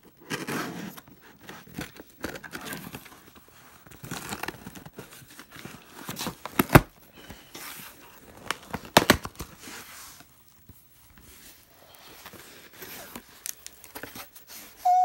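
A cardboard shipping box being opened by hand: tape and paper torn off, cardboard flaps pulled, and paper and plastic crinkling, with irregular rustles and a few sharp snaps. The two loudest snaps come about two seconds apart near the middle.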